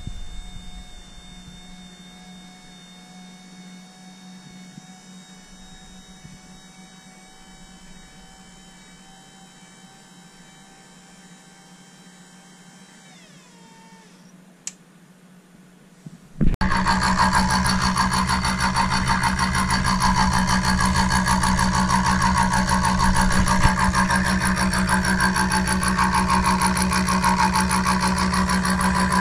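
An electric power tool's motor runs with a steady whine, then winds down and stops about 13 seconds in. After a click, a much louder machine starts abruptly about three seconds later and keeps running with a dense, steady noise.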